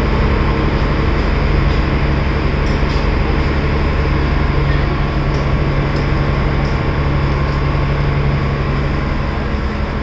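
Passenger boat's engine running steadily: a loud, even low drone with a constant hum, heard from inside the cabin. A few faint clicks over it in the second half.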